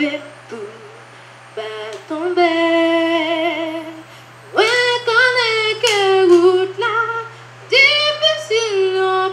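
A young girl singing solo into a microphone with no accompaniment. She holds notes with vibrato in phrases broken by short pauses, loudest about halfway through, over a faint steady low hum.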